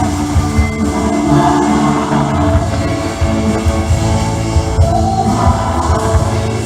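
Live church band music: a worship song with a steady drum beat, guitar and singing.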